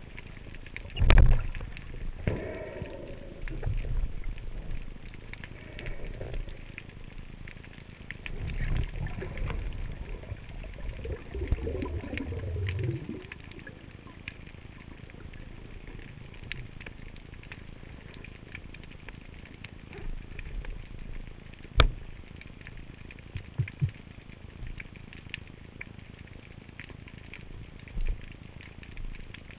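Underwater sea ambience recorded through a camera housing: a steady crackle of tiny clicks, with low rumbling water movement through the first half and a single sharp click a little past the middle.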